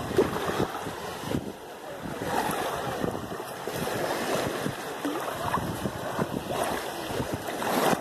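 Shallow seawater sloshing and lapping around a camera held down in the water, with small irregular splashes.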